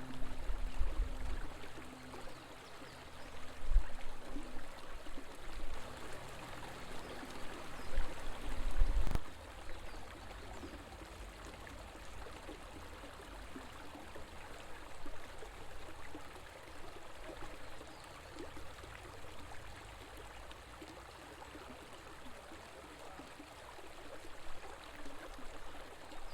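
River water flowing, a steady rushing babble. Low rumbling bumps come and go through the first nine seconds and stop abruptly.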